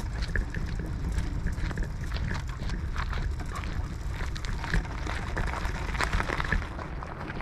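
Outrider Coyote electric ATV rolling over rough ground: a steady low rumble with wind on the microphone and scattered small crunches and ticks.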